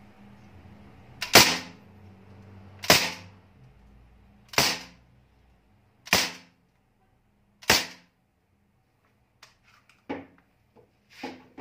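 Five semi-automatic shots from a Crosman Bushmaster MPW CO2 BB rifle: sharp pops about a second and a half apart, each followed by a short echo off concrete walls. A few lighter clicks and knocks follow near the end.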